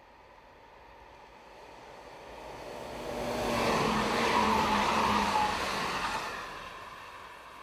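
A JR Hokkaido 721-series electric train passes at speed: a rush of wheels on rail that swells to its loudest about four seconds in, with a whine that falls slightly in pitch as the train goes by, then fades away.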